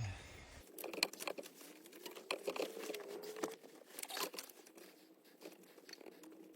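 Faint rustling, crinkling and small irregular clicks of wiring and plastic parts being handled while a car stereo is worked into a dashboard.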